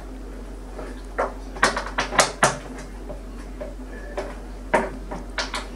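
Irregular clicks and knocks, about eight, from a hand tool working the bolts around the rim of a plastic washing machine tub as they are given a final tighten.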